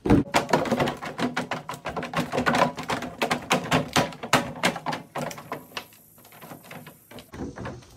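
Bare feet stepping and stomping in a plastic kiddie pool: a quick, uneven run of taps and thumps that thins out after about five seconds.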